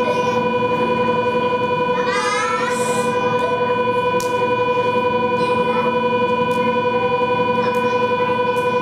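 Steady electrical whine from a stationary Nankai 2000 series electric train, several fixed tones at once. A brief warbling high-pitched sound comes about two seconds in, and a few sharp clicks follow later.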